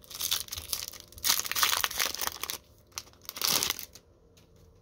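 The wrapper of a Topps sticker packet crinkling as it is torn open and handled, in several rustling bursts. The longest and loudest comes in the middle, and the sound stops about a second before the end.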